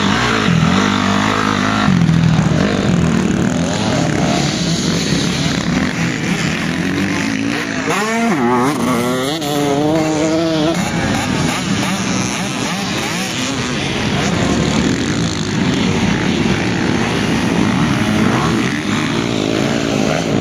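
Motocross dirt bikes running and revving as they ride round a dirt track. The engine notes rise and fall with throttle and gear changes, with a burst of rapid revving about eight to ten seconds in.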